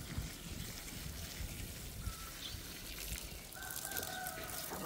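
A chicken calling once, a held call lasting about a second that starts about three and a half seconds in, over a steady background hiss.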